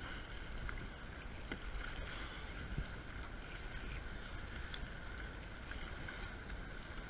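Kayak being paddled through choppy surf: a steady wash of water splashing and sloshing against the hull and paddle.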